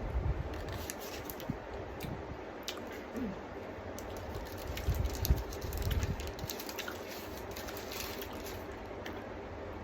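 Someone biting into and chewing a cheesy chicken tikka wrap, with small wet clicks of chewing. Low thumps come at the start and again about halfway through.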